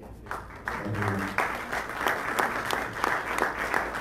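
Audience applauding: the clapping starts a moment in, builds within about a second, and then holds as a steady round of many hands.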